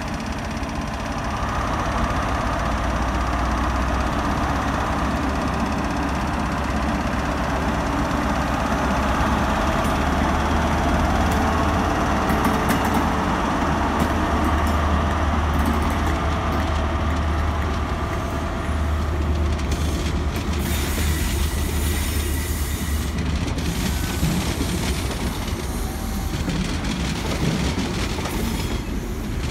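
Class 43 HST power car's MTU diesel engine running under power as the train moves slowly past, a steady low drone that grows louder about two seconds in. From about twenty seconds in, the drone fades and the Mk3 coaches roll by with a hiss of wheels on rail.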